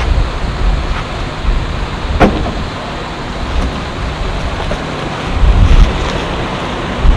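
Wind buffeting the camera microphone: a steady rushing noise with heavy low rumbling gusts, and one sharp knock about two seconds in.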